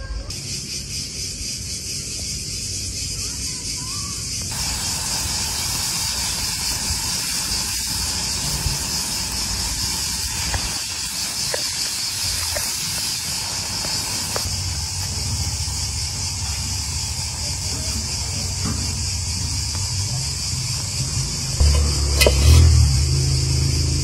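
Steady high-pitched hiss of outdoor background sound, with low rumbling from the middle on and a louder low rumble about two seconds before the end.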